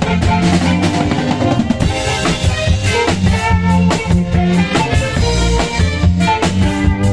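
Cha-cha dance music played loud through a large sound system: a steady drum-kit beat with snare and bass drum over a held bass line.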